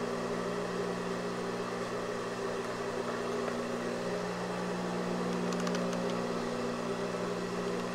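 Steady mechanical hum with a low electrical tone, unchanging throughout, with a few faint light ticks a little past the middle.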